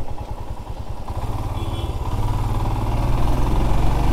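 Single-cylinder motorcycle engine under way, pulsing at low revs, then picking up and getting louder from about a second in as the bike accelerates.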